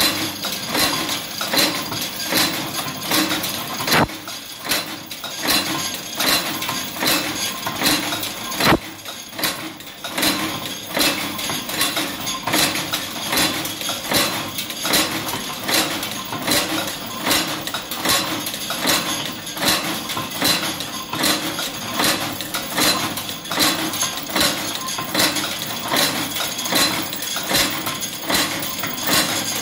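Wire-fed cold-heading machines for screws and bolts running in production, each stroke of the ram giving a sharp metallic clank in an even, rapid rhythm over a steady mechanical hum. A couple of heavier knocks stand out a few seconds in.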